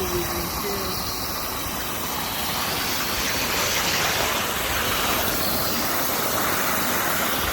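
Steady hiss of running water from the turned-on line that is leaking through a crack.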